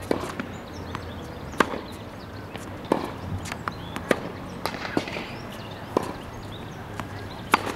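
Tennis ball struck with a racket and bouncing on a hard court during a rally: a string of sharp pops, roughly one every second or less.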